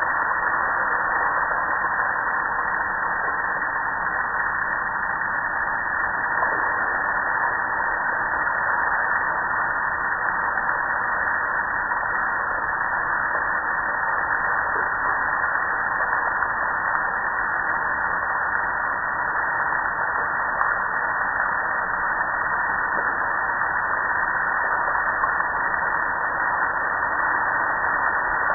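Steady hiss of water spraying onto a soap-covered gas grill and running off it, an even rush that holds at one level throughout.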